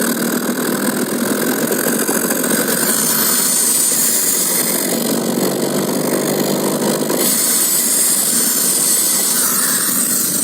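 Carbureted car engine running under light throttle while driving in fourth gear, swelling louder for a couple of seconds around the middle. A steady high hiss of air runs alongside: air drawn in through an added air-bleed leaning device on the intake, which is meant to lean the mixture and save fuel.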